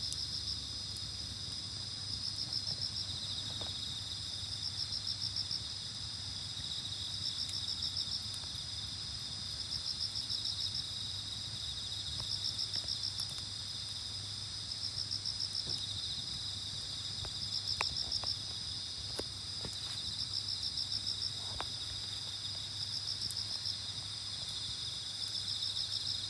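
Night insects singing: a steady high-pitched chorus, with one insect trilling in short bursts about every two and a half seconds. A few faint pops are scattered through it.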